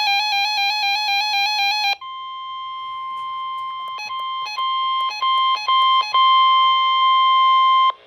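A weather alert radio sounds its warbling alarm, then switches about two seconds in to a single steady tone, the NOAA Weather Radio warning alarm tone that comes before a warning message. The steady tone is broken by about five short clicks as the volume is stepped, getting louder, and it cuts off right at the end.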